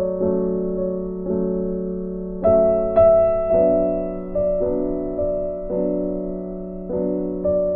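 Background music: a slow, gentle piano piece, with notes or chords struck about once a second and fading over a held low note.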